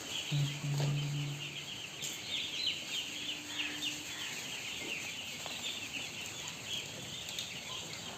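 A shed full of broiler chicks peeping continuously, a dense mass of many high-pitched cheeps overlapping. A brief low hum sounds about half a second in.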